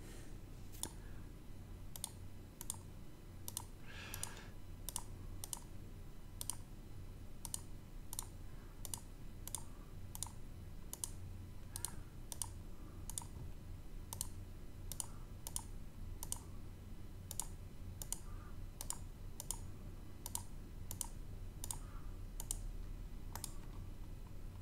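Computer mouse clicking: single sharp clicks about one to two a second, over a faint low steady hum.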